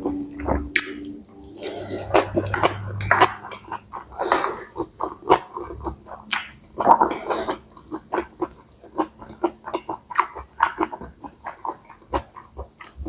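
Close-up eating sounds: chewing stir-fried rice noodles with pork and Chinese kale, a steady run of wet mouth clicks and smacks.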